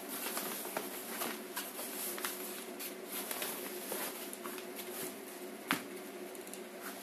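Crackling and rustling of a creased printed backdrop cloth being handled, many small clicks over a steady hiss, with one sharper tap about six seconds in as a hand presses the cloth flat.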